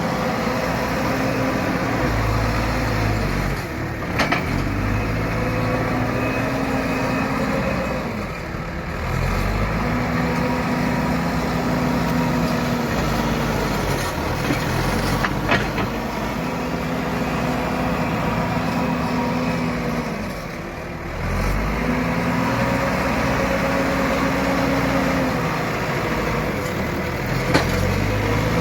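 Hydraulic excavator's diesel engine working under load, its note sagging and picking up again about every six seconds as the hydraulics work through each pass. A few sharp knocks, like the bucket striking, come through now and then.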